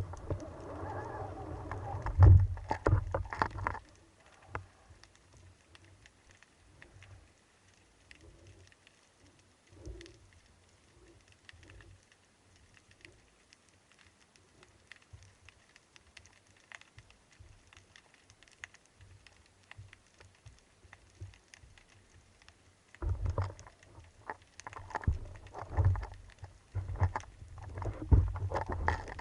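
Spearfishing camera sounds: muffled water sloshing and knocks against the camera for the first few seconds and again near the end, with a long quiet stretch of faint scattered clicks in between.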